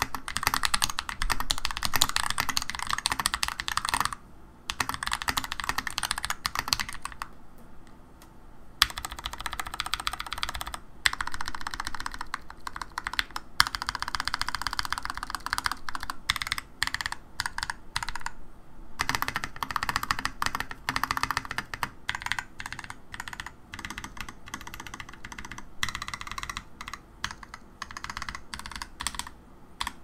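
Fast typing on a mechanical keyboard with lubed Akko CS Ocean Blue tactile switches in a foam-filled GMMK TKL with Tai-Hao keycaps, a dense run of key clacks broken by brief pauses.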